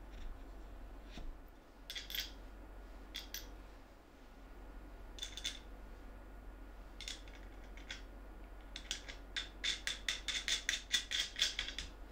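Small metal clicks and clinks of washers and nuts being fitted onto the bolts at the pivots of a plywood linkage, in short clusters. Near the end comes a quicker run of metallic ticks, about four or five a second, as a nut is worked down a bolt by hand.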